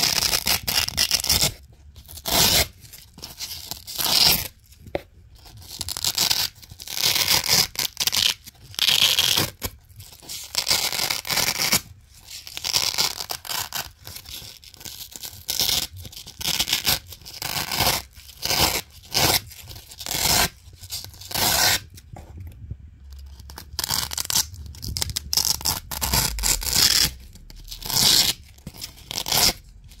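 Double-sided Velcro pieces being peeled off a Velcro-covered base over and over: repeated crackly hook-and-loop ripping, a rip every second or two, with short pauses between.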